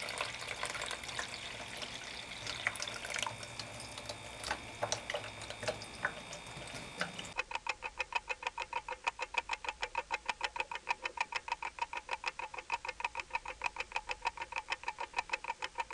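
Liquid trickling and splashing as a diluted solution is poured from a glass jar into a coffee filter in a strainer and funnel. About seven seconds in, this gives way suddenly to a rapid, even clock-ticking sound effect of about five ticks a second.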